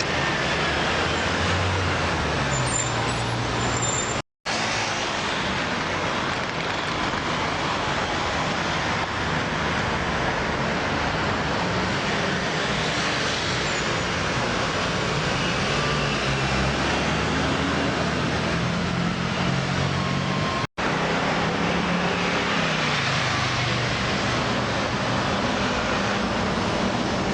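Heavy road traffic: cars, buses and lorries running past, with engine hums and tyre noise over a constant roar of traffic. The sound cuts out completely for a split second twice.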